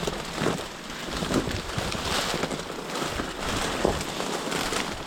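Dry cattail stalks rustling and crackling as someone pushes through them on foot, with many small snaps and ticks.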